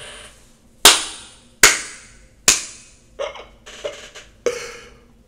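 Three loud gunshot-like bangs a little under a second apart, each ringing off, followed by three fainter bangs.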